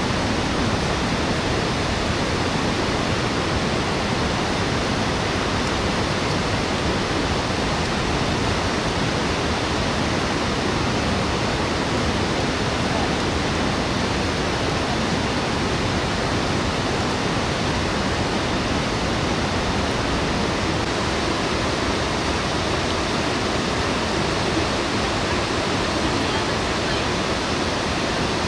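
Fast-flowing mountain river running over rocks in rapids: a steady, unbroken rush of water.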